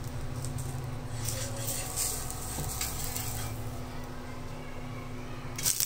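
Dosa batter sizzling faintly on a hot tawa, the hiss coming and going over a steady low hum.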